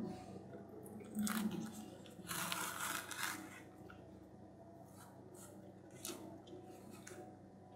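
A ripe banana being peeled by hand: the stem end cracking open, then the peel tearing away in strips, with a few short clicks near the end.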